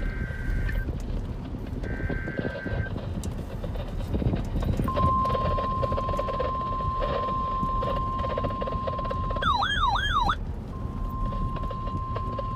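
Emergency Alert System weather radio tones: two short bursts of two-pitch SAME data tones, then the steady single-pitch weather radio alert tone. About nine and a half seconds in, the alert tone is broken for about a second by a warbling, siren-like sweep up and down, then it resumes. A steady low static runs underneath.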